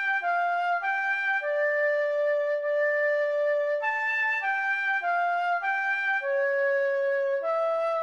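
Sampled flute from notation-software playback playing a single unaccompanied melodic line, the first voice of a four-part canon. Short, evenly held notes, with a long held lower note about a second and a half in and another near the end.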